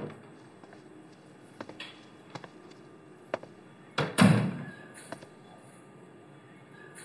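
A few small clicks, then an apartment door pulled shut with a single thunk about four seconds in.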